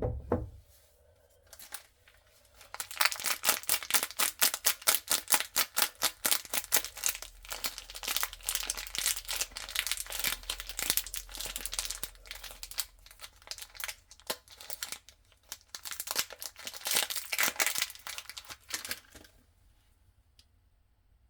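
The wrapper of a packaged bar of soap being torn open and crinkled by hand: a dense run of crackles and rips. It starts a couple of seconds in, eases briefly in the middle, and stops shortly before the end.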